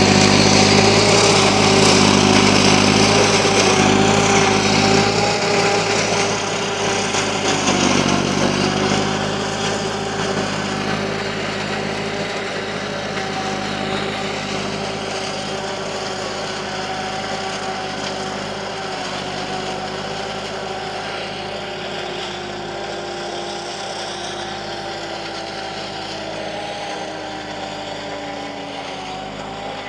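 Tractor-driven single-row forage harvester chopping maize for silage: the tractor engine and the harvester's steady tone run together, fading as the rig moves away. Near the end the tone sinks slightly in pitch.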